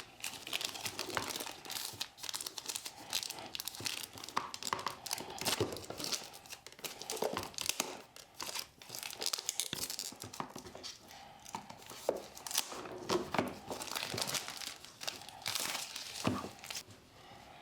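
Plastic wrapping being ripped and crinkled off a small product box: dense, irregular crackling and tearing, with a few louder rustles, dying down near the end.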